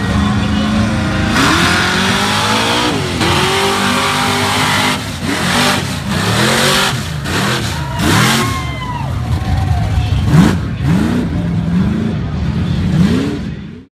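Lifted mud-bog truck on oversized mud tyres being revved hard through deep mud, the engine's pitch climbing and falling again and again, with bursts of noise among the revs. The sound cuts off abruptly near the end.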